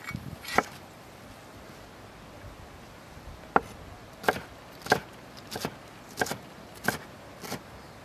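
Chef's knife chopping green bell pepper on a wooden cutting board: a single chop, a pause of about three seconds, then a steady run of about seven chops, roughly three every two seconds.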